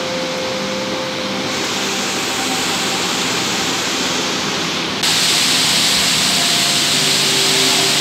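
Laton Waterfall's roar: a loud, steady rushing of falling water, which jumps suddenly louder and brighter about five seconds in.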